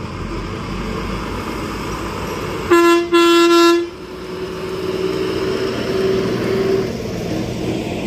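Passenger bus driving past on a road, its engine and tyre noise growing louder as it approaches. About three seconds in, its horn sounds: a short blast, then a longer one of about a second.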